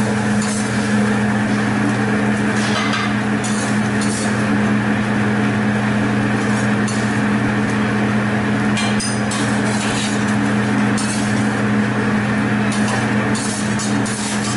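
Steady low hum of the restaurant's ventilation over the hibachi grill, with scattered light clinks of dishes and cutlery.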